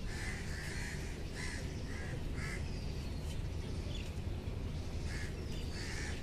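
Birds calling outdoors: a series of short calls, several in the first half and a few more near the end, with faint thin whistles higher up, over a steady low background rumble.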